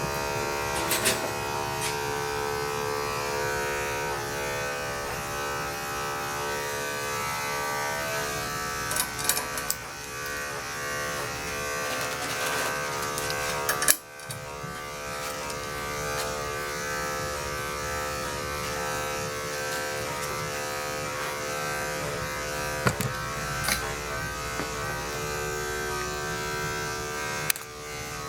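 Electric dog grooming clippers running with a steady buzz. The buzz cuts out briefly about halfway through, then starts again, with a few sharp clicks here and there.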